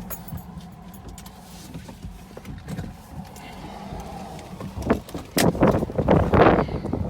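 Low steady rumble, then about five seconds in loud irregular gusts of wind buffeting the microphone, with knocks.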